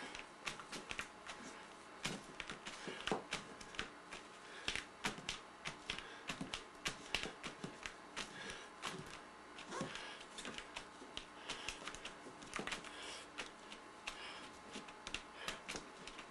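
Fingertips dabbing and tapping paint onto a canvas in quick, irregular taps, several a second.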